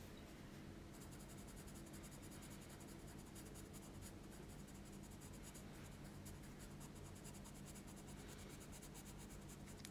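Faint scratching of a graphite pencil shading on paper in quick, close strokes from about a second in, pressed harder to lay down a dark tone.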